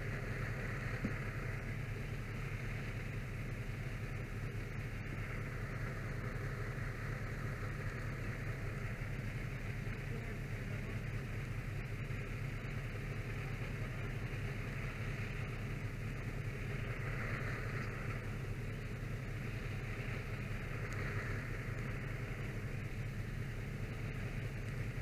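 Fire apparatus engine running steadily, a constant low hum with a steady hiss over it.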